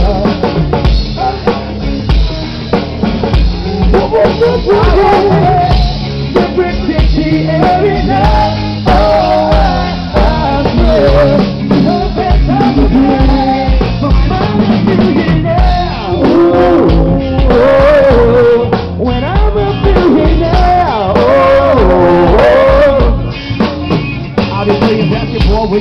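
Live rock band playing loud: drum kit keeping a steady beat under electric bass and guitar, with a male lead voice carrying the melody on top.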